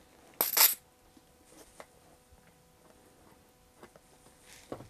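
Squeeze bottle of Titebond liquid hide glue spitting with a brief hiss from its nozzle as it is squeezed into a chair leg's joint, then a few light handling clicks and a knock near the end as the bottle is set down on the bench.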